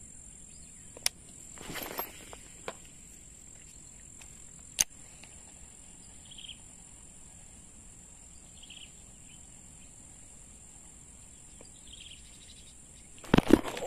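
Insects chirring in a steady, high-pitched drone, with faint short chirps now and then. A few sharp clicks and a brief rustle about two seconds in, and louder clicking near the end.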